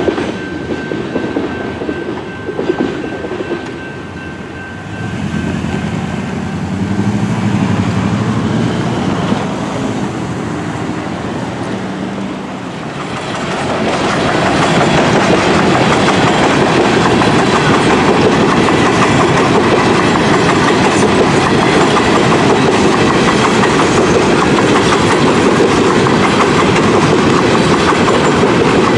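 Train passing through a railroad grade crossing: a steady rumble and clatter of rolling railcars, which grows much louder about halfway through and stays loud as freight cars roll by.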